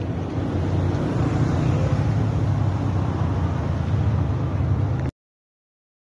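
Steady low rumbling outdoor background noise that cuts off abruptly about five seconds in.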